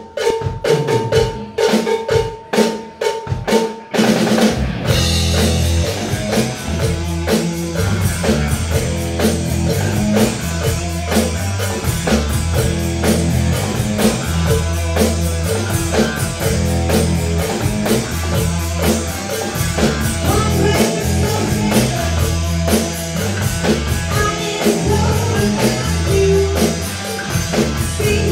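Rock band playing live: the drum kit opens alone with snare and bass-drum hits, then about four seconds in the bass guitar and electric guitar come in and the full band plays an instrumental riff over a steady beat.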